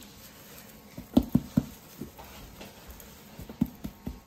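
Hand patting a seasoning rub onto the skin of a raw plucked goose: soft, irregular slaps, a quick run of them about a second in and a few more near the end.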